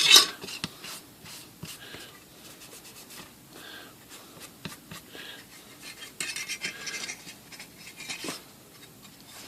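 A cloth rag wiping and rubbing over a typewriter's painted metal cover panel, with light handling clicks and knocks. A longer, louder scuffing wipe comes about six seconds in.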